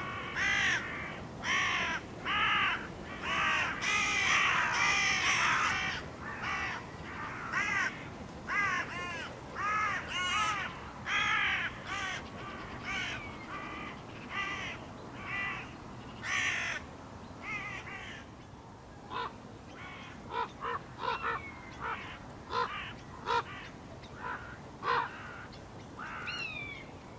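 A flock of hooded crows cawing harshly and without let-up, agitated after one of their number has been shot. The calls crowd and overlap in the first few seconds, then thin to scattered, shorter calls; near the end other calls join in, which the hunter takes for ravens and buzzards.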